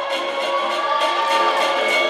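Bhangra dance music playing, with a steady beat and a melody that slides up and down in pitch.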